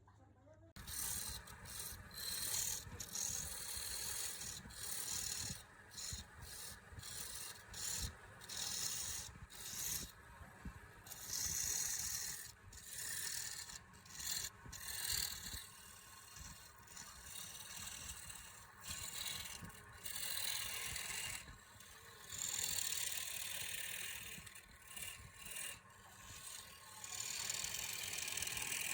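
Wood lathe running with a steady low hum while the spinning wood is worked in repeated scraping, hissing strokes, each lasting about half a second to two seconds.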